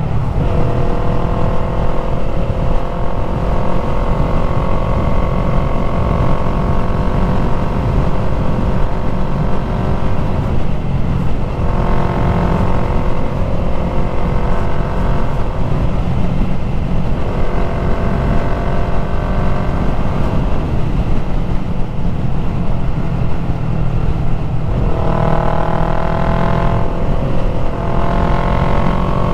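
Yamaha MT-03 motorcycle with an aftermarket full exhaust running under way, its engine note rising and falling with the throttle. The note fades briefly about three times, as if the throttle is eased or a gear is changed, then picks up again, over a steady low rumble of wind on the microphone.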